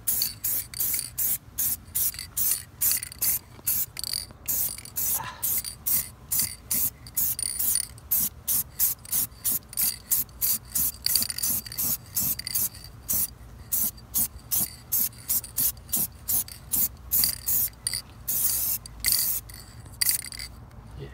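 Aerosol spray-paint can hissing in quick short bursts, about three a second, with a couple of longer bursts near the end before it stops.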